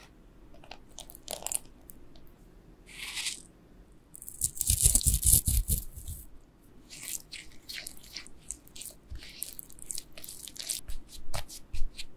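Melted butter poured into a glass bowl of flour and milk, then a spatula stirring the mix into dough. Close, crunchy scraping and clicking, loudest between about four and six seconds in.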